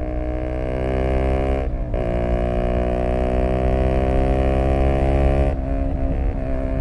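Zontes U125 scooter's single-cylinder engine through an aftermarket BlackWidow exhaust, running at steady high revs under throttle. The throttle is rolled off briefly about two seconds in and picked up again, then eased off about five and a half seconds in.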